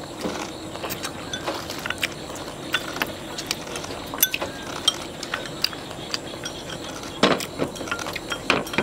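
Chopsticks clinking and tapping against ceramic rice bowls and plates as several people eat, in many light, irregular clicks, a few louder knocks near the end.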